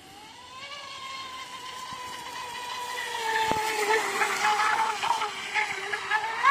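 Graupner GTX 650 brushless outboard motor on a radio-controlled boat, whining steadily at speed. It grows louder as the boat runs in close, its pitch sagging slightly, with the hiss of the hull and spray across the water rising alongside it.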